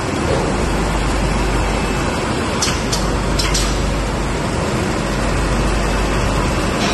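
High-speed paper coffee filter bag making machine running at full production, a steady dense mechanical clatter and hum. Two short hisses come about three seconds in.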